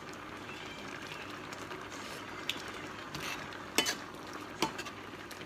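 A metal ladle stirring thick nam ya fish curry sauce as it simmers in a stainless steel frying pan, over a steady hiss of cooking. The ladle clinks against the pan several times in the second half.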